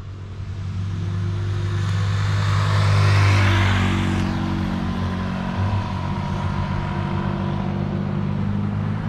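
Motor vehicle engine running steadily. A swell of noise rises to a peak about three seconds in and then fades.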